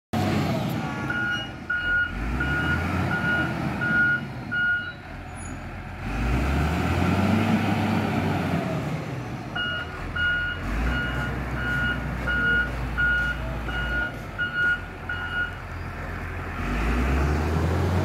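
Motor grader's diesel engine running, its reverse alarm beeping about twice a second in two runs, the first about a second in and the second from about halfway. The engine revs up between the runs and again near the end.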